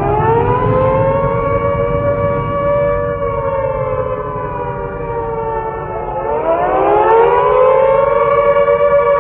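Civil-defence sirens wailing across the city, sounded at W-Hour to mark the anniversary of the Warsaw Uprising. Several sirens at slightly different pitches sound together: the pitch rises, sinks slowly, then rises again about six seconds in, over a low rumble, heard from high above the city.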